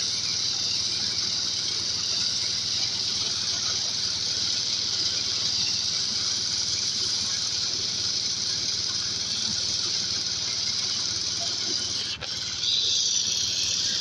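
Motorized corn sheller running steadily: a dense, high hiss of corn rattling through the machine over a low engine hum, with a brief dip and change in tone about twelve seconds in.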